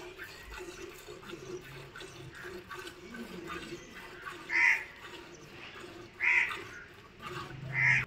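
Milk squirting in quick soft strokes into a steel pail as a water buffalo is hand-milked, with three short loud animal calls in the second half, each about a second and a half apart.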